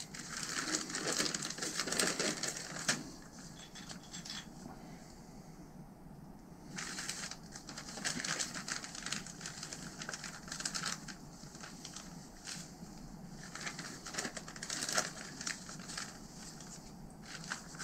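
Thin plastic bag crinkling and rustling in irregular bursts as hands rummage through the loose rubber seals and O-rings inside it, with a quieter pause a few seconds in.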